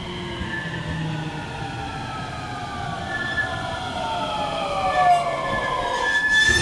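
JR West 223 series electric train braking into a station: its traction motors whine in several tones that glide steadily down in pitch as it slows. A high, steady squeal joins about halfway through, and a short hiss sounds at the end.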